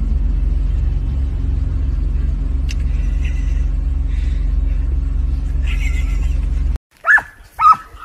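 Steady low rumble inside a car's cabin, which cuts off abruptly near the end. It is followed by two short, sharp animal calls, each dropping in pitch.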